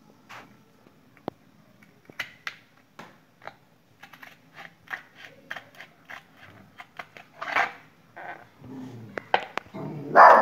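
Hard plastic bucket being cut along marked lines: irregular clicks and snips of the plastic, with a couple of louder crunches as the plastic flexes and cracks about halfway and near the end.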